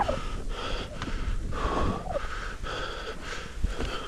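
Skis scraping over thin, crusty snow in a run of short turns down a steep slope, the noise rising and dipping with each turn, with the skier breathing hard between turns. The snow cover is thin, with rock close beneath.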